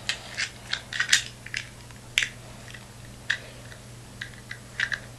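Hard plastic toy parts of a Beyblade top and its launcher being handled: a string of irregular sharp clicks and taps, densest in the first half, with a few more near the end.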